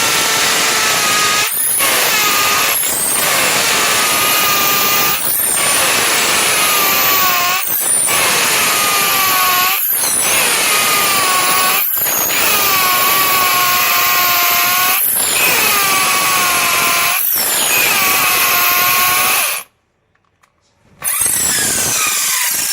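Electric drill running in long bursts, its motor pitch sagging and recovering under load, with brief dips every two seconds or so. Near the end it stops for about a second and a half, then starts again.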